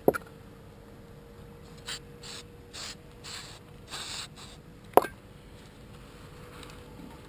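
Paper towel rubbed hard over a greasy metal winch part, about half a dozen quick scrubbing strokes in the middle. A sharp knock of metal parts comes at the very start and another about five seconds in.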